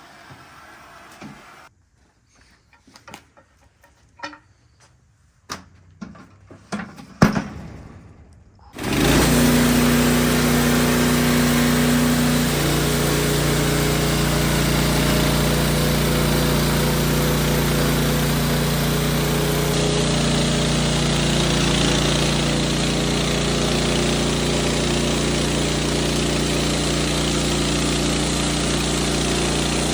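A few scattered knocks and clatters, then, about nine seconds in, a loud motor-driven machine starts up suddenly and runs steadily.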